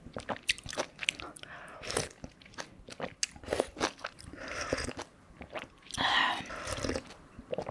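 Close-miked eating of mala tang: sipping hot broth from a spoon and chewing noodles, with many small wet mouth clicks and smacks, and a couple of longer airy sips.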